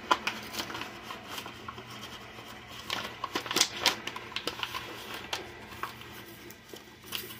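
Paper bag of cornmeal rustling and crinkling as it is handled and opened, with a run of irregular sharp crackles.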